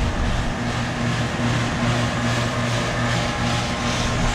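Outdoor condensing units of central air conditioners running: a steady compressor hum under the rush of the condenser fans, with a faint even pulsing in the air noise.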